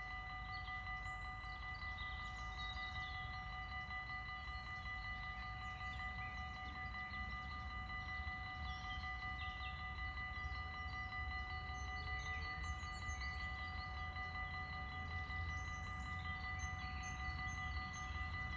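Level-crossing warning bells ringing steadily, a bright chiming tone that holds throughout while the barriers are down, warning that a train is coming. Birds chirp over it, above a low rumble that grows slightly near the end.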